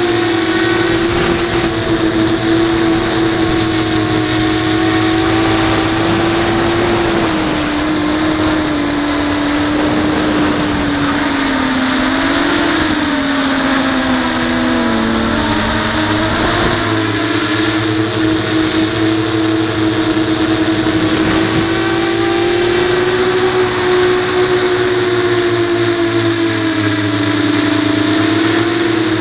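A 5-inch FPV quadcopter's brushless motors (Brotherhobby Returner R5) and HQProp 5-inch propellers whine steadily, picked up by the onboard GoPro. The pitch wavers with throttle, sags about halfway through and climbs back a couple of seconds later.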